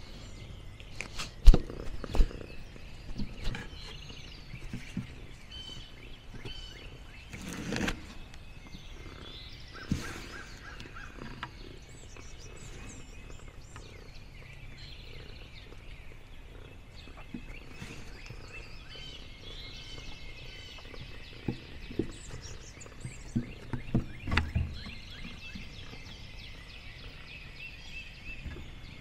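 Outdoor ambience of birds chirping steadily in the background, broken by scattered soft thumps and rustles. The sharpest comes about a second and a half in, and a small cluster comes late on.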